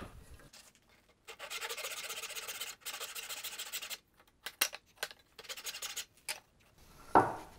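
A Pax brass-backed tenon saw cutting a tenon's shoulder across the grain by hand. It makes two long strokes, then several short, lighter strokes as the cut reaches the line.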